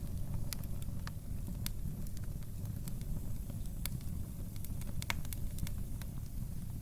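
Wood fire burning in a home fireplace: a steady low rumble of flames with irregular sharp crackles and pops of burning wood, the loudest pop about five seconds in.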